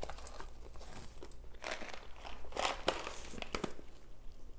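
Chunks of compressed cornstarch being chewed: dry crackly crunching in three short spells, about one and a half, two and a half and three and a half seconds in.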